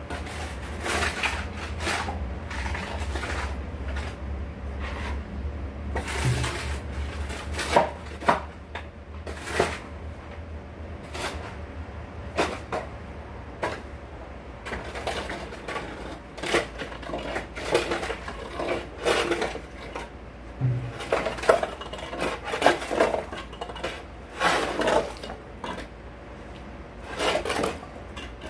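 Irregular clatter and knocks of hard objects, dozens of sharp strikes coming in busier stretches, over a low steady hum that drops away about six seconds in.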